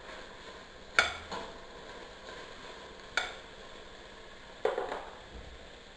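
Diced chicken breast sizzling in oil in a stainless steel pot, stirred with a utensil. The utensil knocks sharply against the pot three times: about a second in, about three seconds in, and near the end.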